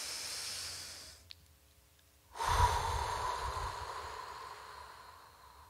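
A man breathing audibly into a close microphone: a softer breath at the start, then about halfway through a long, deliberate exhale that is loudest at its onset and fades away slowly.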